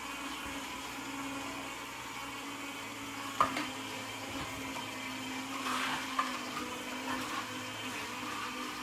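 Juico Uno upright slow cold-press juicer running with a steady motor hum as its screw crushes produce. A sharp knock comes about three and a half seconds in, followed by a few lighter clicks.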